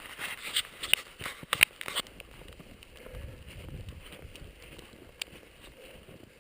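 Crunching footsteps in fresh snow, a quick irregular run of crackles over the first two seconds. Then a low rumble of wind on the microphone for about a second before things settle to a faint outdoor hush.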